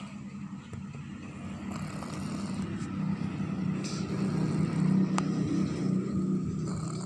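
A motor vehicle passing by: a steady engine hum that grows louder for about five seconds, then begins to fade.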